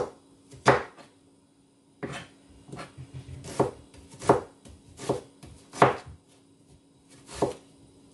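Kitchen knife slicing a red onion on a plastic chopping board: about nine sharp knocks of the blade on the board, most under a second apart, with two short pauses.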